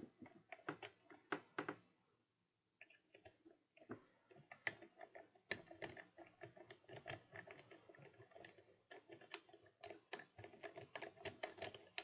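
Faint, quick metallic clicking and scratching of a triple-peak rake worked in and out of the pin-tumbler keyway of a Schlage F Series key-in-knob lock, with a wiper-style Z-bar tension wrench. There is a short pause about two seconds in.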